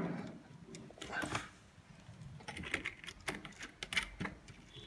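Irregular small clicks and taps of a push-pull switch and its nut being handled and fitted into a scooter's plastic panel.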